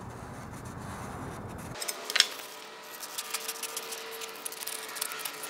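Aviation tin snips cutting a cardboard template: a few crisp snips and crackles, the sharpest about two seconds in, with lighter snips near the end.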